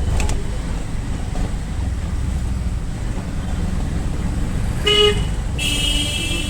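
Road traffic with a steady low engine and road rumble, and car horns: a short honk about five seconds in, then a longer, higher-pitched horn blast near the end.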